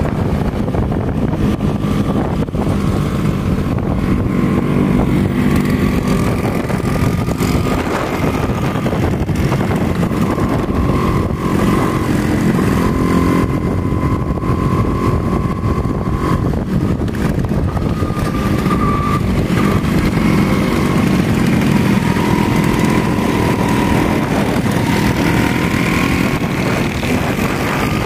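Vespa scooter engines running steadily as a column of scooters rides along a road, heard from one of the moving scooters, with the engine pitch wavering up and down a little.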